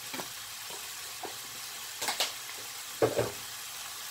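Diced onion, carrot and celery sizzling steadily in oil in a nonstick wok, with a few short knocks and two louder clatters about two and three seconds in.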